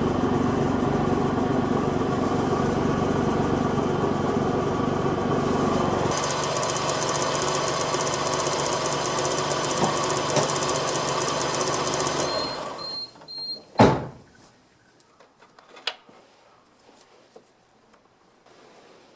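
Suzuki Cappuccino's engine running, heard from the car. It stops about thirteen seconds in, just after three short high beeps, and is followed by one loud knock and a few faint clicks.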